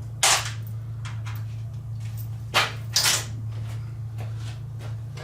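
A few short knocks and rattles of metal parts being handled as the coil-pack bracket is worked free of an engine's valve cover. The loudest comes about a quarter second in and two more come close together around three seconds in, with fainter ones between, over a steady low hum.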